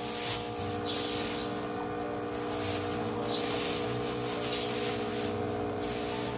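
Nescafé Dolce Gusto capsule coffee machine brewing: its pump hums steadily while coffee sprays into a glass mug, with louder hissing spurts every second or so.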